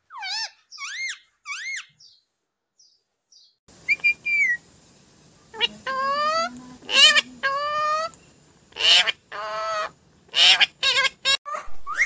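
Rose-ringed parakeet (Indian ringneck) calling: short whistled calls that rise and fall, a pause of about two seconds, then longer wavering calls, and from about nine seconds in a string of louder squawks.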